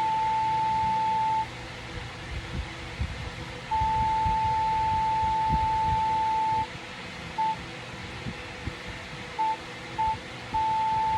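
Morse code sent as a single steady beep switched on and off: a long tone ending about a second and a half in, another long tone of about three seconds, then three short beeps spaced out, and a fresh long tone starting near the end.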